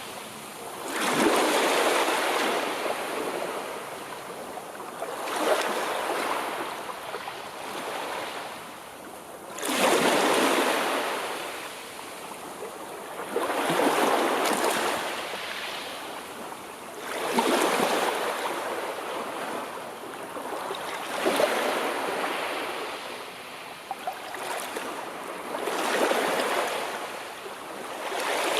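Sea waves breaking, one about every four seconds, each rushing in quickly and then fading as it washes back.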